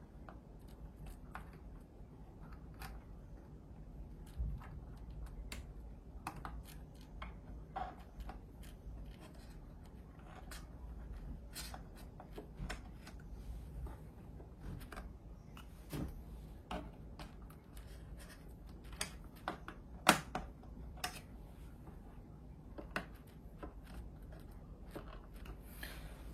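Scattered small clicks, taps and rattles of computer parts being handled inside an open iMac: a hard drive, plastic brackets and a cable connector. One sharper click comes about twenty seconds in.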